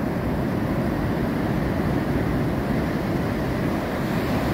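Steady rumble of surf breaking and washing up a sandy beach, mixed with wind buffeting the microphone.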